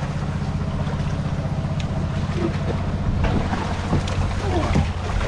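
Engine-driven water pumps running with a steady, pulsing drone, with water splashing as gloved hands grope through a shallow pool.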